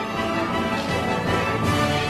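Background music from the anime soundtrack, sustained instrumental tones with no speech.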